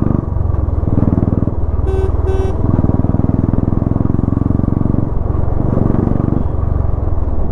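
Royal Enfield single-cylinder motorcycle with a loud exhaust thumping while riding in traffic, the throttle opening and closing several times. A vehicle horn beeps twice, briefly, about two seconds in.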